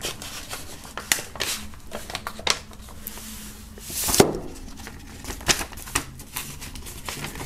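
Handling of a vinyl record's paper inner sleeve and cardboard gatefold cover: scattered light taps, clicks and paper rustles, with a louder swish of paper about four seconds in.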